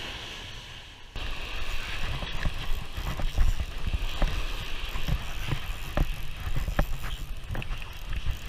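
Surf hissing on the shore for about a second. Then, sharply, wind buffets the microphone while a spinning reel is worked against a hooked fish, with irregular clicks and ticks from the reel.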